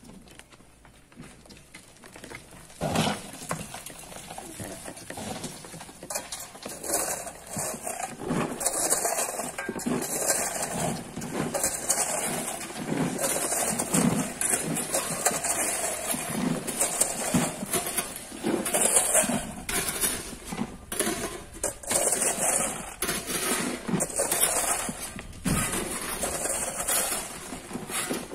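Rocks and stones tumbling and clattering down a quarry cliff face: a dense, irregular run of knocks and rattles with a few heavier impacts, starting about three seconds in.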